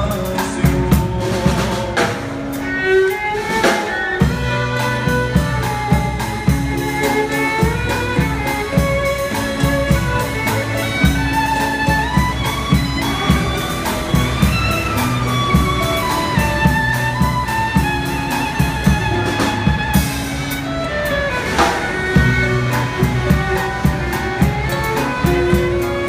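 Live instrumental band music: a violin plays the melody over strummed acoustic guitars and a drum kit keeping a steady beat.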